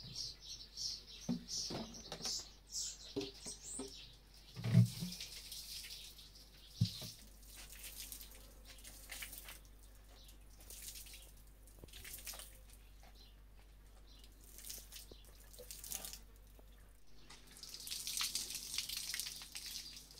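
Water splashing from a watering can onto a concrete yard while a straw broom sweeps the wet ground in short strokes. A loud dull thump comes about five seconds in and a smaller one about two seconds later.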